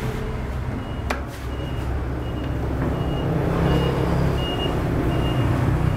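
A motor vehicle's engine running close by with a steady low rumble, and a short high warning beep repeating about two to three times a second. A single sharp click about a second in.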